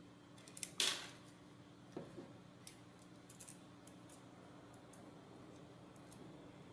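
Faint clicks and taps of small parts being handled: a nut going onto a bolt that holds a plastic gear motor to a robot car's circuit-board chassis. The sharpest click comes about a second in, with a few lighter ones over the next three seconds, over a faint steady hum.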